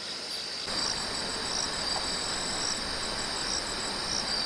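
Crickets and other night insects chirping: a steady high trill, joined just under a second in by rapid pulsed chirping and a slower repeated chirp, over a steady background hiss.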